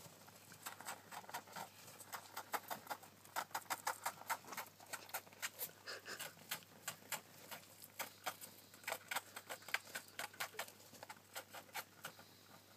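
Syrian hamster scrabbling in wood-shaving bedding and handling a plastic ping pong ball: quick, irregular rustles and light clicks, several a second.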